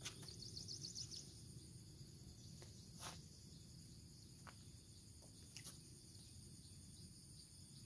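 Near silence: faint, steady, high-pitched insect chirring. A quick run of ticks comes about half a second in, and single sharp clicks come at about three and at about five and a half seconds.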